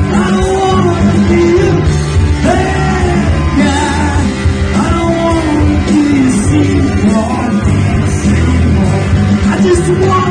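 Live rock band playing: electric bass, electric guitar and drums through PA speakers, with a man singing into a microphone.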